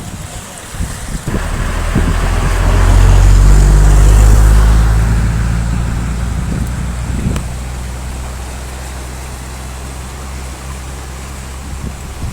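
A motor vehicle's engine runs close by. It builds up and is loudest a few seconds in, then settles into a steady, lower running sound, with a rushing hiss of wind or water beneath it.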